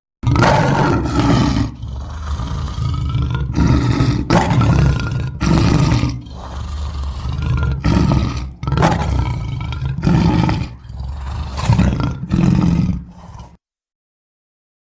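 Smilodon (sabertooth cat) creature sound effect: a string of about a dozen roars and snarls, one after another with short breaks, cut off abruptly near the end.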